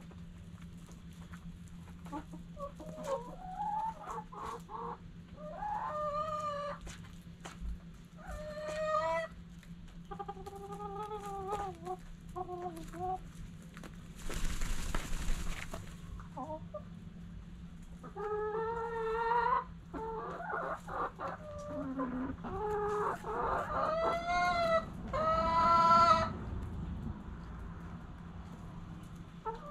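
Backyard chickens clucking and calling, a string of short calls and several longer drawn-out ones, the loudest near the end. About halfway through there is a brief rustling burst, and a steady low hum runs underneath.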